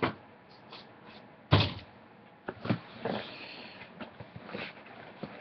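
Cardboard shoebox being handled and set down: a sharp knock, a heavy thump about a second and a half in, then a few lighter knocks and some rustling.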